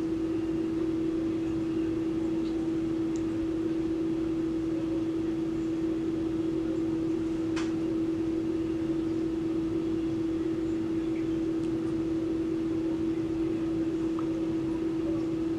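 A steady hum at one fixed pitch, unchanging throughout, over faint room noise.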